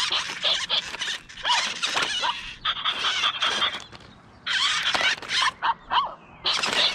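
Anko remote-control robot dog toy in its play mode, its small speaker giving rapid bursts of high, squeaky electronic puppy yips and chirps, with a short lull about four seconds in.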